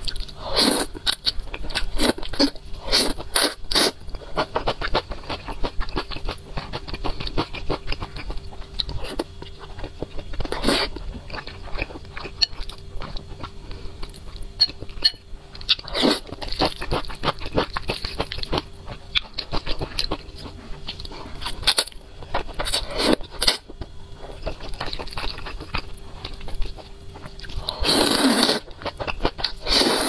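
Close-miked eating of spicy instant noodles: noodles slurped in a few longer bursts, including one about a second in and a longer one near the end, with wet chewing and mouth clicks in between.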